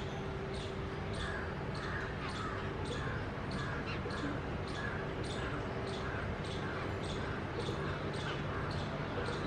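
Short, sharp chirping calls from a small animal, repeated evenly about twice a second, over a steady low hum.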